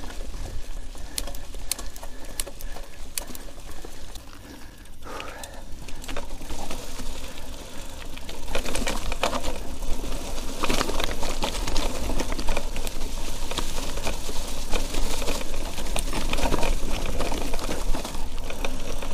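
Mountain bike being ridden down a wet, rooty forest trail, picked up by an action camera: constant rattling and clicking from the bike over the rough ground, with a low rumble underneath. A brief squeak comes about five seconds in, and the rattling gets louder and busier from about eight seconds in.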